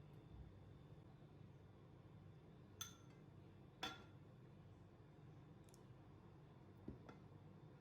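Near silence with a low steady hum, broken by three short faint clicks, the second about a second after the first and the third near the end.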